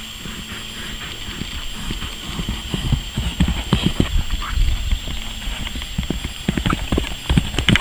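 Skewbald pony cantering on turf: a quick run of dull hoofbeats, loudest around the middle as it passes close.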